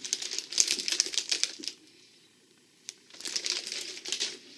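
Plastic Oreo cookie package crinkling as it is handled, in two spells with a short pause in the middle.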